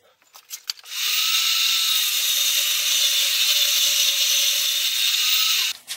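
Steel angle iron being ground on a stand-mounted grinder: a steady grinding hiss of metal on the abrasive. It starts about a second in and cuts off just before the end, after a few light clicks of the metal being handled.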